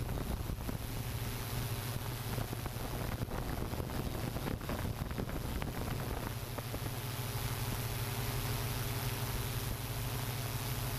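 Hexacopter drone's rotors and motors humming steadily, with wind noise on the onboard microphone; the tone of the hum shifts slightly about halfway through.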